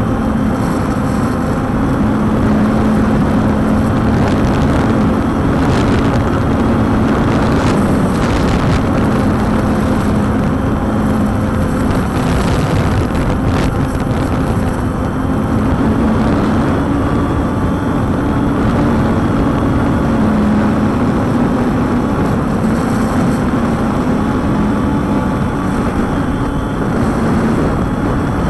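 Walkera Tali H500 six-rotor drone's propellers whirring in flight, a steady hum that wavers slightly in pitch as the motors hold it against the wind, under heavy wind rumble on the microphone.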